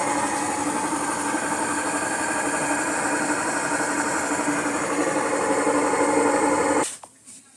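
Electrolux LTC 10 top-loading washing machine spinning with a loud, steady mechanical drone and whine, the noise its owner puts down to a worn gearbox (transmission). The noise stops abruptly near the end.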